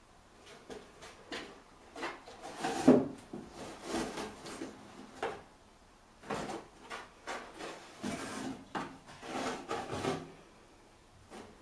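A kitten scrambling inside a cardboard box: irregular scratching and scraping on the cardboard, with the box knocking and sliding on the floor. The loudest is a sharp knock about three seconds in.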